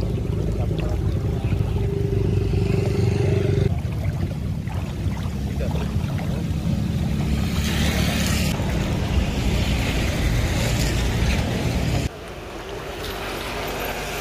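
Motor vehicle engine running close by, a steady low drone with a wash of road and water noise, which drops off sharply about twelve seconds in.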